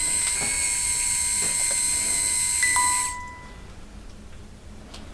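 Steady electronic hiss with a high whine and a faint steady beep-like tone from a ghost-hunting music box device that has just switched on; it cuts off suddenly about three seconds in.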